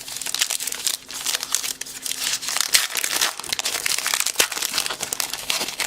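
Wrapper of a baseball card pack crinkling and crackling as it is handled and opened, a quick, irregular patter of small crackles.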